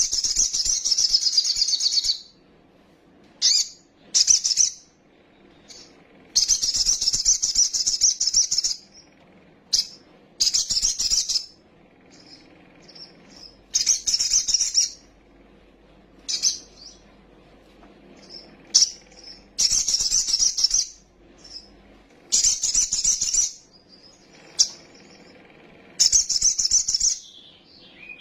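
Little spiderhunter (kolibri sogok ontong, 'sogon') singing a full, fast high-pitched chattering song in repeated bouts of one to two seconds with short pauses between them, the kind of song played to provoke caged birds into singing.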